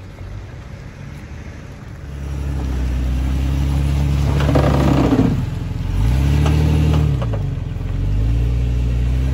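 Jeep Cherokee XJ's 4.0-litre inline-six running at low revs while crawling over rough dirt, with a short rattling scrabble about five seconds in and a brief rev up and back down about a second later.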